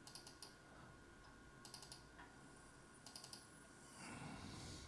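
Faint clusters of quick computer-mouse clicks, three of them about a second and a half apart, as vocal notes are split in Melodyne. A faint rustle comes near the end.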